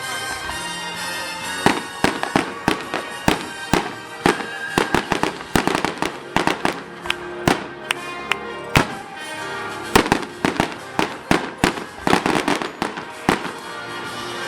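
Fireworks exploding in rapid, irregular volleys of sharp bangs and pops, starting about a second and a half in, over steady music.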